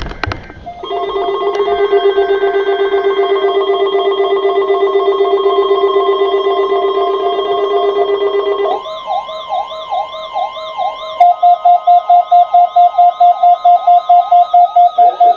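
Electronic emergency alert tones for a weekly weather-radio test. A steady chord of several tones holds for about eight seconds, then gives way to a rapidly warbling tone. A couple of seconds later a beeping tone, pulsing about four times a second, joins the warble.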